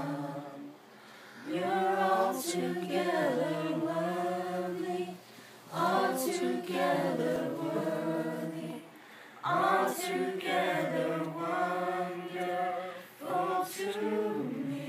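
A small group singing a worship song together, unaccompanied, in phrases of about four seconds with short pauses for breath between them.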